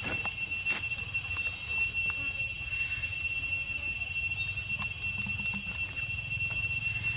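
Steady high-pitched drone of cicadas, holding one pitch with an overtone above it, over a low rumble, with a few faint clicks.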